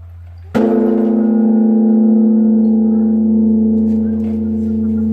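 Tongdosa temple's great bronze Buddhist bell (beomjong) struck once by its swung wooden log about half a second in, then ringing on with a deep, long hum of several steady tones that swells and fades slowly.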